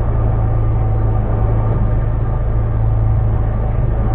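Off-road vehicle's engine idling steadily with a constant low hum, heard from inside the cab while the vehicle stands still.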